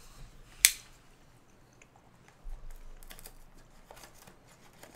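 One sharp click about half a second in, then soft scattered clicks and light crinkling as snack packaging is handled at the table.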